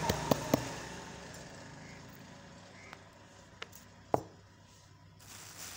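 Several sharp clicks, two close together near the start and a louder one about four seconds in, over faint background noise that dies away during the first two seconds.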